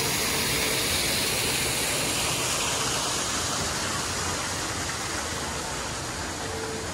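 Artificial waterfall pouring down a stone wall into a pool: a steady rushing hiss that slowly fades.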